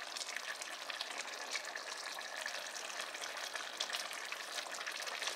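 Chicken and onion stew simmering in a pot on the stove: a steady bubbling sizzle with many fine crackling ticks.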